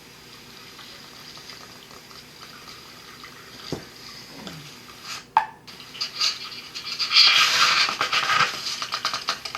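Canoe paddles dipping and splashing in river water, softer at first, then louder and more irregular after a short break a little past halfway.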